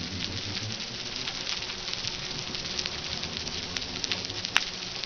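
Underwater recording of fish sounds: a dense, steady crackle of many small clicks, with one sharp louder click about four and a half seconds in.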